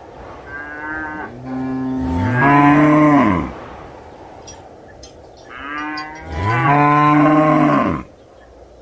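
A cow mooing twice, two long moos a couple of seconds apart. Each starts softly, swells louder, and drops in pitch as it ends.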